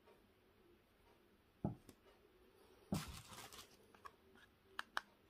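Hands handling objects on a table: a low thump, then about a second of rustling clatter, then two sharp clicks near the end.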